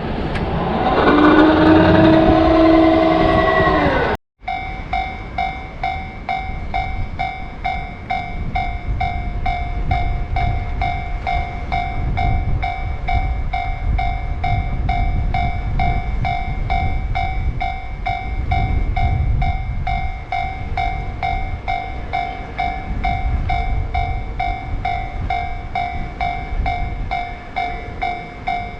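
Railroad crossing warning bell ringing in an even repeating pattern of about two strikes a second, over the low rumble of a train passing through the crossing. Before it, a few seconds of a passing train whose whine falls in pitch, cut off abruptly.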